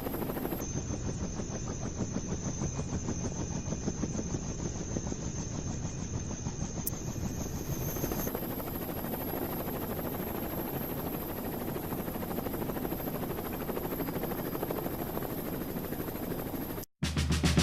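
Helicopter sound effect: steady rotor and engine noise with a rapid rotor beat, cutting off abruptly near the end.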